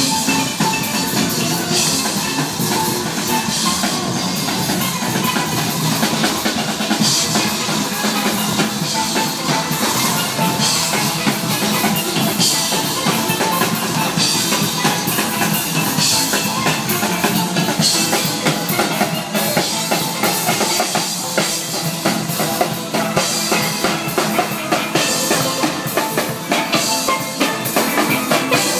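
Carnival steel band playing: steel pans over drums with a steady beat.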